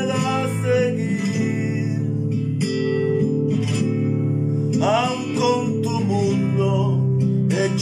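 A man singing a slow Spanish Christian ballad over a recorded acoustic guitar accompaniment, holding long sung notes between lines.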